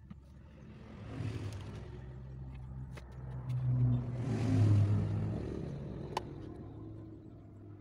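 A motor vehicle passing by: its engine hum and road noise swell to a peak about halfway through, then fade away. Two sharp clicks come through, one about three seconds in and one about six seconds in.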